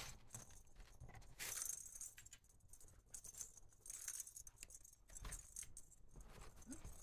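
Faint, intermittent jingling and rattling of small toy balls inside a collapsible accordion-cardboard scratcher toy as it is moved by hand.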